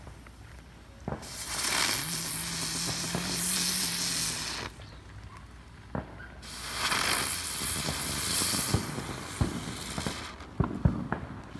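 Ground fireworks going off: two spells of loud spraying hiss, each lasting a few seconds, with scattered sharp pops and crackles that bunch together near the end.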